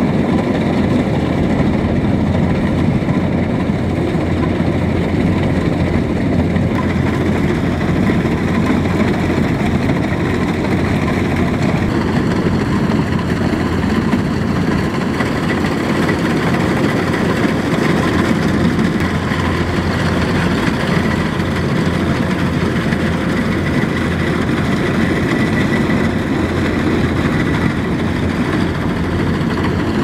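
A Kubota rice combine harvester running steadily under load as it cuts and threshes rice. The diesel engine's low drone blends with the churning of the header and threshing machinery, and a thin high whine comes in about halfway through.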